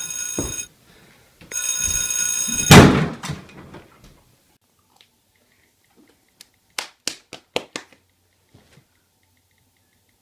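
An electronic ringing tone sounds in two short stretches, then a loud thud about three seconds in. A few seconds later comes a quick run of about six clicks.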